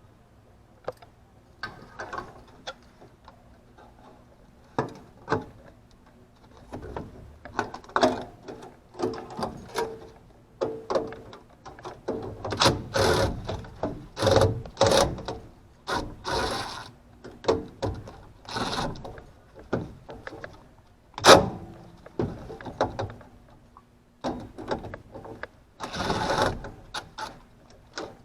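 Irregular mechanical clicks, clanks and scrapes of hand tools and metal parts being handled during work on an air-conditioning unit, with one sharp knock about three quarters of the way through, over a faint steady low hum.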